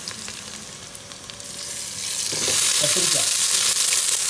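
Shallots and drumstick pieces sizzling in hot ghee in an aluminium pot. About two and a half seconds in, the sizzle turns sharply louder as cut brinjal pieces go into the hot fat.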